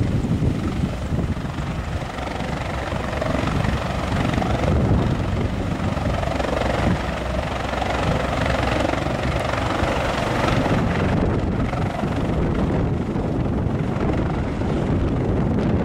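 Bell 430 twin-turbine helicopter running at power with its main rotor turning, lifting off the apron into a hover near the end.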